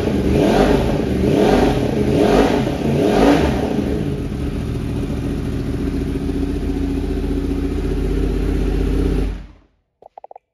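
2021 Yamaha YZF-R1's crossplane inline-four with a Black Widow aftermarket exhaust, blipped four times in quick succession, about a second apart. It then settles to a steady idle and cuts off suddenly near the end.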